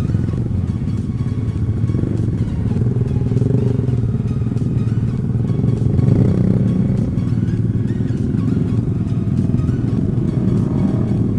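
Engines of several motorcycles running close together as a group rides slowly in a tight pack, a steady engine drone with no breaks.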